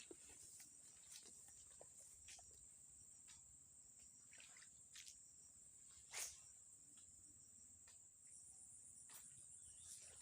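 Faint, steady, high-pitched insect drone, with a few soft clicks and one sharper click about six seconds in.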